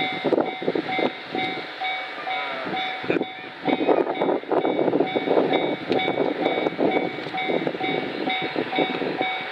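Japanese level crossing warning bell ringing in a steady, even rhythm, the signal that a train is approaching. Louder irregular gusty noise rises and falls over the bell.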